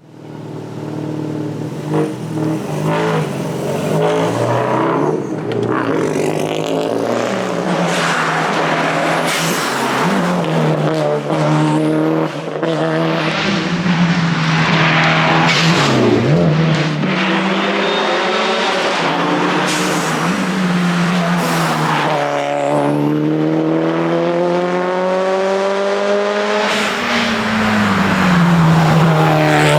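Subaru WRX STI rally car's turbocharged flat-four engine driven hard, its pitch climbing as it revs and falling back at each gear change or lift off the throttle, several times over.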